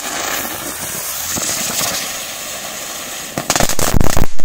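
Small 'rose' spark-spraying firework hissing steadily as it throws out sparks, then breaking into a rapid, loud run of crackling pops near the end.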